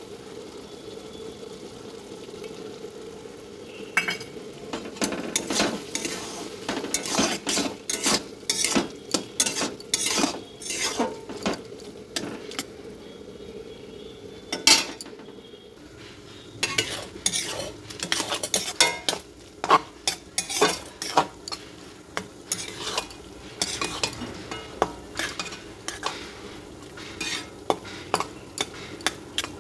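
Steel spatula scraping and knocking against a metal pan as a thick vegetable curry is stirred, in irregular strokes with a short lull about halfway through, over a steady sizzle from the pan.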